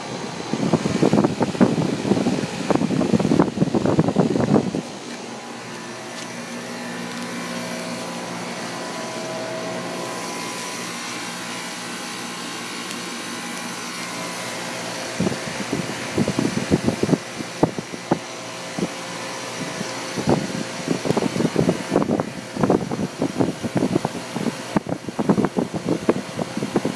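Outdoor condensing units of central air conditioners running: a steady hum from the compressor and condenser fan, heard clearly for about ten seconds in the middle. At the start and again for the last ten seconds or so, louder irregular rushing noise covers it.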